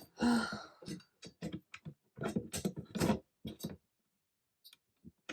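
A woman's quiet, muttered speech in short bursts, with a few small sharp clicks between the words.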